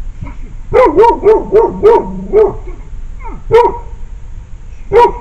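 Dog barking: a quick run of about six barks, then two single barks spaced apart. It is picked up by a trail camera's built-in microphone at night.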